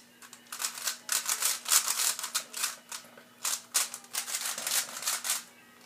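Plastic speed cube being turned rapidly by hand: quick runs of clacking and scraping as the layers turn, in bursts with short pauses, stopping about half a second before the end.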